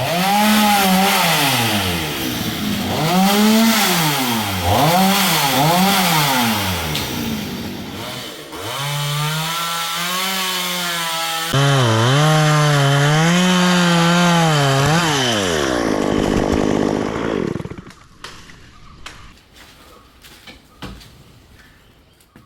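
Stihl chainsaw cutting wood, its engine pitch rising and dipping again and again as the chain bites under load, with a short break about 8 s in. The saw winds down and stops near 18 s, leaving quieter scattered sounds.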